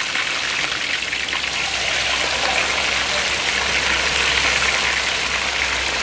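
Whole jelawat and red tilapia deep-frying in a wok of hot oil: a steady, loud sizzle that swells a little in the middle as the tilapia goes in.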